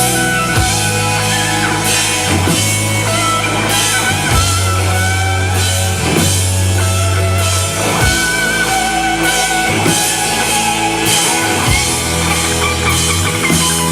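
A band plays an instrumental passage: guitar over a steady bass line and drum kit, with no singing.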